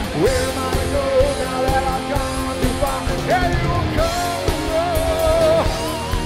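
Live rock band playing electric guitars, bass, drums and keyboards, with a singer holding long, wavering notes over a steady drum beat.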